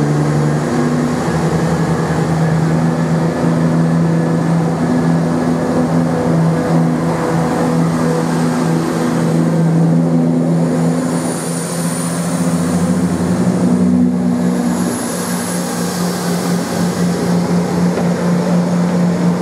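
Class 170 Turbostar diesel multiple unit's underfloor diesel engines running steadily, a low even drone with a slight dip in loudness around two thirds of the way through.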